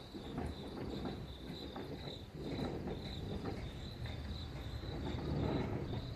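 High, steady pulsing trill of insects chirping, over a low rumbling noise that swells and fades every second or so. The source of the rumble is unidentified.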